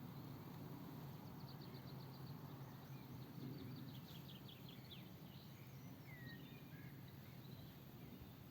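Faint birdsong: a fast series of short, high notes for a few seconds, then a single falling whistle, over a steady low background rumble.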